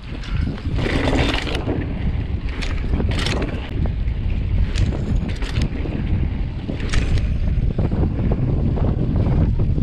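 Wind buffeting the microphone with a steady low rumble during a mountain-bike ride, broken by scattered sharp clicks and rattles from the bike on rough ground.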